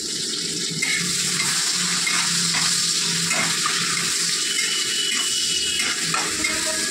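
Sliced onions sizzling in hot oil in a nonstick wok as they are fried for beresta (browned fried onions), with a steady hiss. A metal spatula stirring them scrapes against the pan every second or so.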